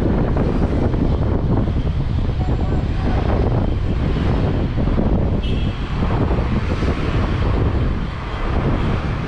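Steady street-traffic and moving-vehicle noise with heavy wind buffeting on the microphone, as heard from the open top deck of a double-decker tour bus in motion.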